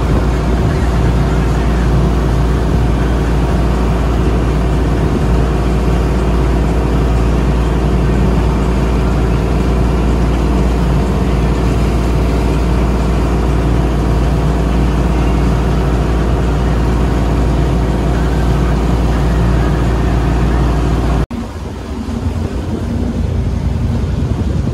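A motor tour boat's engines running at speed, with the rush of its wake and wind buffeting the microphone. Near the end it cuts off suddenly to a quieter engine and water sound as the boat runs slower.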